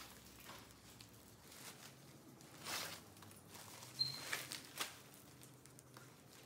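Faint rustling and a few soft clicks of a Coach Pillow Tabby handbag being handled as the padding and packaging are pulled out from inside it, the sharpest clicks coming about three and four seconds in.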